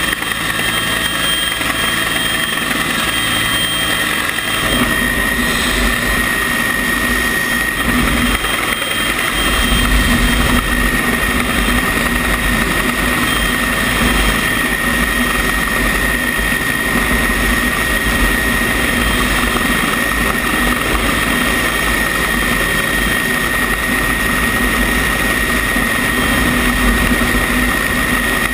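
Rescue helicopter running steadily close by, its rotor and turbine giving a steady rumble with a high whine over it. The low rumble grows louder about five seconds in and again about ten seconds in.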